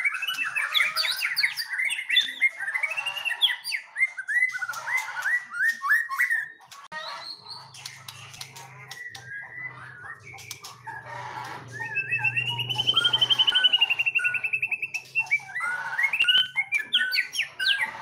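A young wild-caught white-rumped shama (murai batu) singing a loud, varied song of whistles and quick sharp falling notes, the prized 'tembakan' (shots). About twelve seconds in comes a fast, even trill lasting about three seconds.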